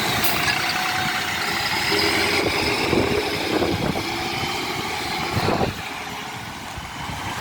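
Bus engine running close by amid road traffic, with a faint whine over the engine noise; the noise drops suddenly near the end.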